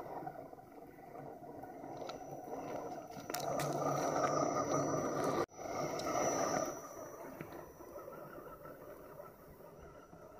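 1/10-scale Axial SCX10 RC crawler driving over forest ground: its electric motor and gear drivetrain run with a steady high whine over the crunch of tyres on twigs and dirt. The sound is loudest through the middle as the truck comes close, breaks off for an instant about halfway, then fades as it moves away.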